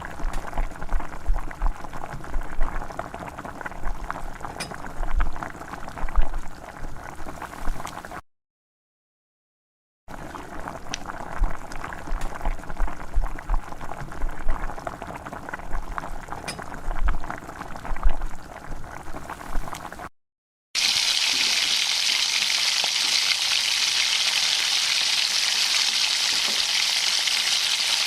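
Herbal decoction of betel leaves, cumin, pepper, garlic, ginger and tulsi bubbling in a pot of water on a low flame, with irregular soft thuds from the pot. The sound breaks off into silence twice. After the second break a louder, steady, even hiss takes over.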